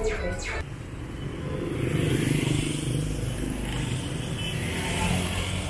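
Street traffic of motor scooters and cars: several small engines running and passing, with the nearest engine loudest around two seconds in.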